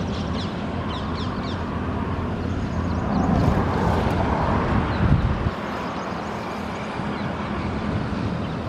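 Distant DEMU diesel multiple-unit train approaching, heard as a steady low engine rumble under an outdoor hiss. A louder low rumble swells about three seconds in and drops away abruptly after about five seconds.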